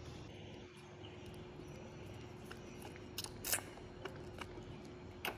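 Baby monkey sucking at a milk bottle: scattered soft mouth clicks and smacks, with a few sharper clicks about three seconds in and again near the end, over a low steady hum.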